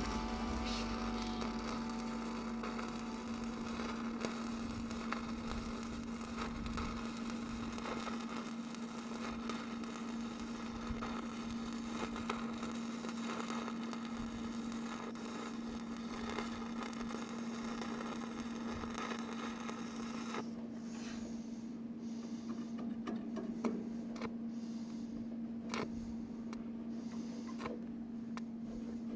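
Stick-welding arc crackling steadily as a bead is run on a steel fish plate, over a steady low hum. The arc stops about twenty seconds in, and a few sharp clicks follow.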